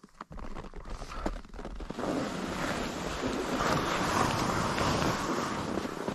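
Skis sliding and scraping over packed snow, with wind rushing over the microphone. A few sharp clicks come in the first two seconds, then the rushing noise grows louder about two seconds in and holds steady.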